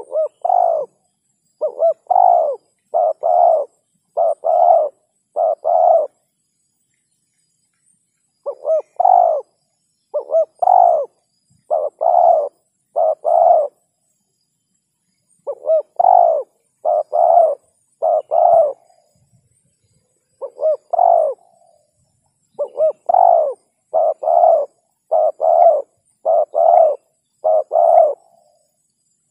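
Spotted dove cooing: its pitched coo phrase repeated in runs of three to seven, with pauses of about two seconds between the runs.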